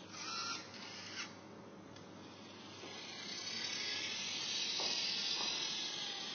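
Scorbot robot arm moving: short hissing bursts and a click in the first second or so, then a long hiss that swells and fades over the last few seconds.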